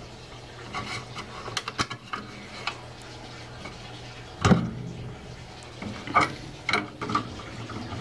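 Clicks and snaps of wire connectors and small hoses being pulled off a furnace gas valve by hand, with the sharpest snap about halfway through and a few more near the end.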